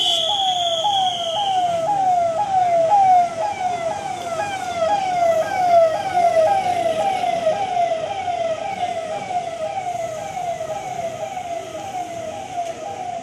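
Electronic vehicle siren sounding a quick falling wail, repeated about two to three times a second, as a convoy vehicle passes. It is loudest over the first half and fades toward the end.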